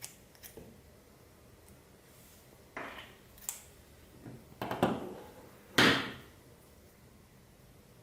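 Clear slime being handled with plastic beads mixed in: a few short squelchy crackles and clicks, the loudest about six seconds in.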